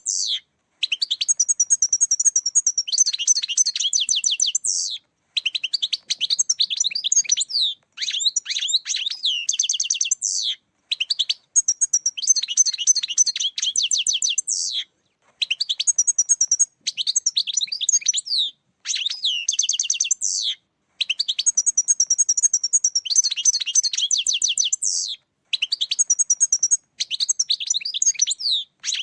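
European goldfinch singing: phrases of rapid, tinkling twitters and trills, each a few seconds long, separated by short pauses.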